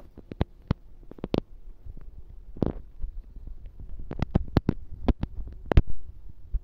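Irregular sharp clicks and knocks, about a dozen, over a low thumping rumble, loudest a little before the end.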